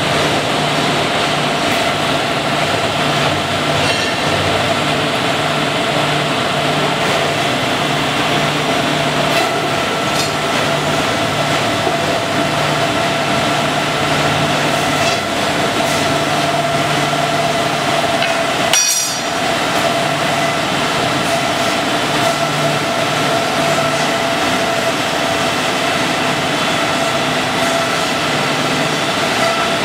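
Four-head automatic abrasive belt grinding machine running steadily, its belts grinding flat metal strips carried through on the conveyor: a constant hum and whine over a dense grinding hiss. A brief crack and momentary dip about two-thirds of the way through.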